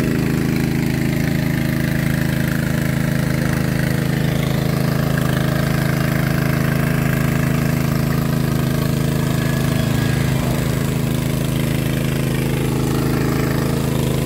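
Small petrol engine of a 3-inch water pump running steadily under load. It is pumping water from the mud pit down the drill pipe to jet-drill a bore well.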